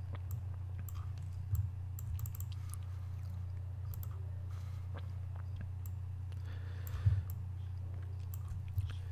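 Scattered computer mouse and keyboard clicks over a steady low hum, with two louder soft knocks, one about a second and a half in and one about seven seconds in.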